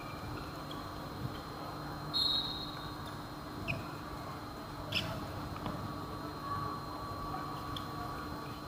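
Background noise at a youth football match: a steady hiss with a faint hum. A short high-pitched squeak sounds about two seconds in, and a single click comes around five seconds.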